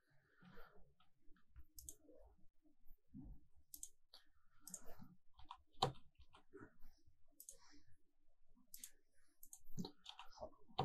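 Faint computer mouse clicks and a few keyboard keystrokes, scattered and irregular, as drop-down menus are picked and a year is typed into a form.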